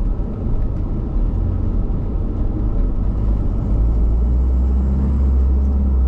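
Motorhome's engine and road noise heard from inside the cab while driving: a steady low rumble, with a deeper drone that grows stronger about four seconds in.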